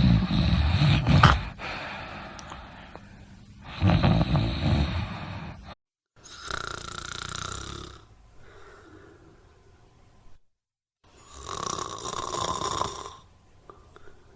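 Snoring in several spliced clips. Two loud, deep snores come in the first six seconds, then after abrupt cuts two higher, hoarser snores follow with a different sound.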